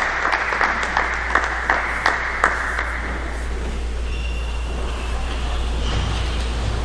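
Spectators applauding a won point in a table tennis arena, scattered sharp claps that die away about three seconds in, over a steady low hum from the hall.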